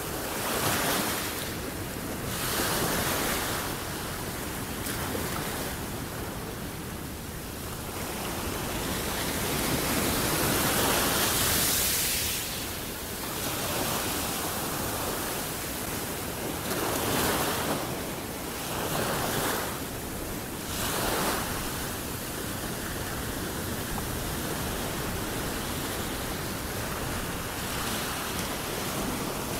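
Small waves breaking on a sandy beach and washing up the shore, the surf swelling and ebbing every few seconds, with the longest, loudest surge about ten seconds in.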